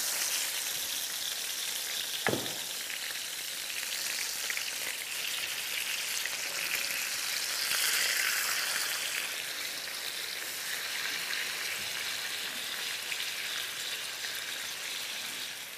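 Honey-marinated pork ribs sizzling as they sear in hot fat in a frying pan: a steady frying hiss that swells briefly about halfway through. One sharp click about two seconds in.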